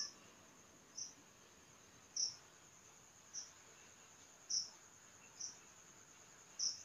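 Faint cricket trilling steadily at a high pitch, with a louder chirp about once a second.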